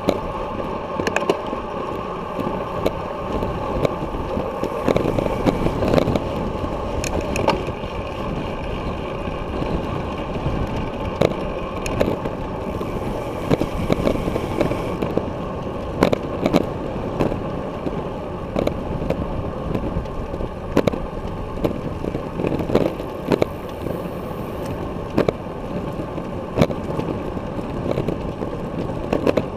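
Wind rushing over a bicycle-mounted action camera, with steady rolling rumble from the tyres on pavement. Frequent irregular sharp knocks and rattles run through it as the bike rides over cracks and bumps in the road.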